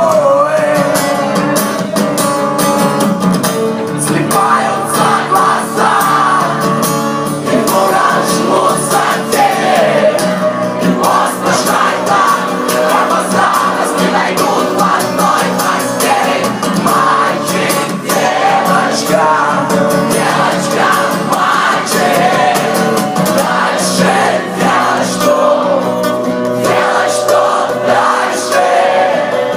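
Rock band playing live with singing, loud and continuous, heard through an amateur recording that carries almost no deep bass.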